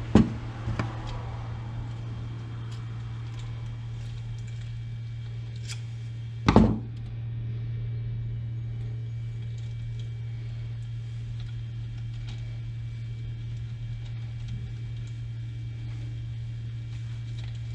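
Metal split ring and chain being handled and worked off the feeder, giving a few sharp clicks near the start and a louder click about six and a half seconds in. Under it runs a steady low hum.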